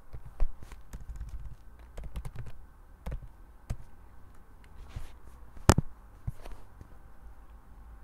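Computer keyboard keys and mouse buttons clicking irregularly, busiest in the first few seconds, with one sharper, louder click about two-thirds of the way in. A steady low hum runs underneath.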